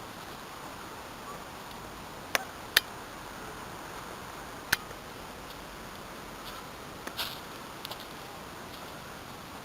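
A few sharp clicks or snaps, two close together about two and a half seconds in, another near five seconds and a softer cluster near the end, over a steady faint hiss.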